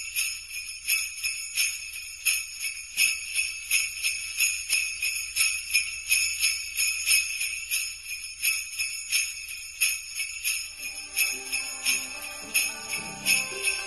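Sleigh bells jingling in a steady rhythm, about three shakes every two seconds. About eleven seconds in, a run of lower pitched notes joins in.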